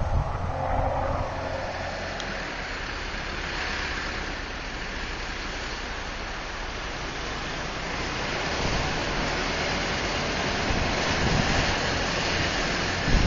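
Diesel engines of a Duramax 6.6 L V8 pickup stuck in mud and a backhoe pushing it, working under load beneath a steady rushing noise that grows louder over the last few seconds. A low engine hum is plainest in the first two seconds.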